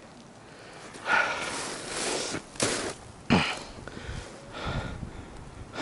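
A man breathing hard and out of breath: several loud, hissy breaths and sniffs, the first starting about a second in, then shorter ones every second or so.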